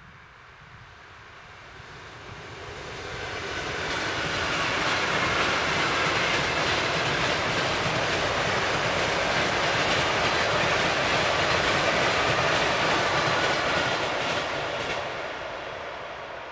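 ED4M electric multiple unit passing by: rumble and rail clatter of its wheels, rising over the first few seconds, holding steady, then fading near the end.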